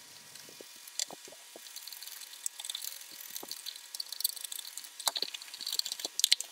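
A modelling tool rubbing inside a leather holster, burnishing the sealed interior to lay down the rough fibres: irregular scratchy strokes that grow busier in the second half, with a few light clicks.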